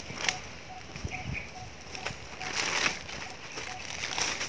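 Gloved hands rustling dry leaves and crumbly soil at a planting hole, in a few short scuffs, the longest a little past halfway. Behind it a bird repeats a single short note about twice a second.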